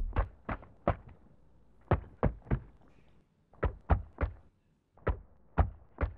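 Knocking on a door in sets of three: four groups of three sharp knocks, the groups about a second apart, the last three knocks spaced more slowly.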